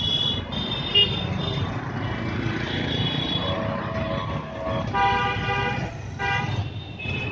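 City street traffic: engines running in a steady rumble while several vehicle horns honk. The strongest is a horn blast about five seconds in that lasts about a second, with a shorter honk just after it. A sharp knock sounds briefly about a second in.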